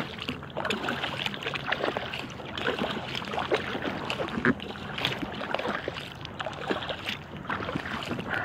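Paddling an inflatable kayak: irregular small splashes and drips of water from the paddle blades against a steady wash of water.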